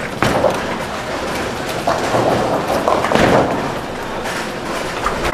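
Bowling alley din: balls rolling down the lanes with a low rumble and pins clattering, with a sharp knock just after the start and a louder clatter about three seconds in.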